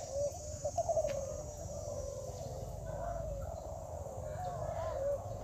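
Many caged spotted doves (derkuku) cooing at once, their overlapping coos at much the same pitch, over a steady low rumble.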